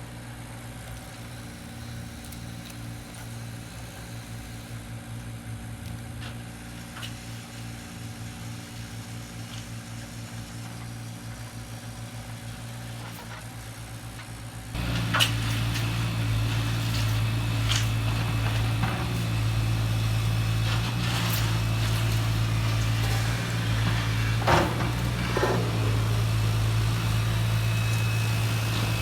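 Steady engine-like hum of RC construction machines at work, which steps up louder about halfway through. Scattered clicks and knocks follow.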